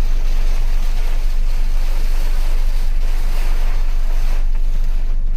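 Typhoon wind gusting around a car, heard from inside, with a heavy low rumble under a rushing noise that rises and falls with the gusts.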